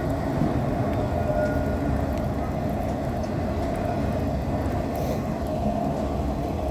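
Empty autorack freight cars rolling slowly past on wet track, about 15 miles an hour: a steady rumble of steel wheels on rail.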